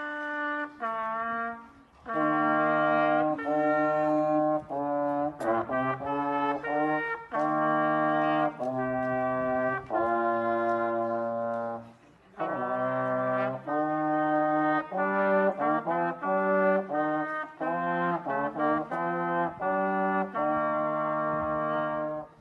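Trumpet and trombone playing a slow tune together in two parts, with long held notes in phrases and short breaths between phrases about 2 and 12 seconds in.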